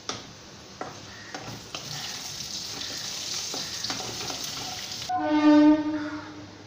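Potato pieces sizzling as they fry in oil in a kadai, stirred with a spatula that scrapes and clicks against the pan. About five seconds in, the sizzle stops and a loud, steady pitched tone sounds for about a second and a half.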